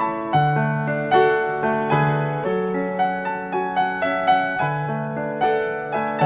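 Background piano music: a gentle melody of struck notes, each fading away, over held bass notes.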